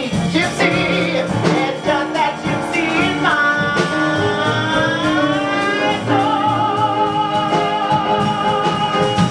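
A singer over backing music, sliding up about three seconds in and then holding one long note with vibrato.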